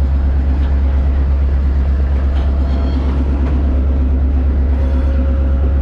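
The Skunk Train running along the track, heard from aboard: a loud, steady low rumble that does not let up.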